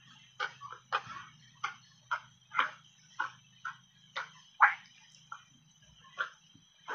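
Refrozen shaved ice dusted with matcha powder being crunched between the teeth in big bites: a run of sharp, irregular crunches about twice a second, the loudest a little past the middle.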